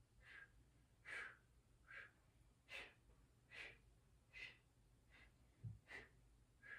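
A woman's soft, short, sharp exhales, about nine evenly spaced puffs a little under a second apart. This is paced "little exhales" breathing to keep the core engaged while holding a plank.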